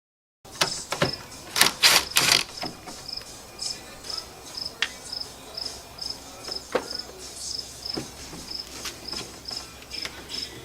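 A cricket chirping steadily, about three short high chirps a second, starting after a moment of silence. Several loud knocks and rattles come in the first couple of seconds, with scattered lighter clicks after.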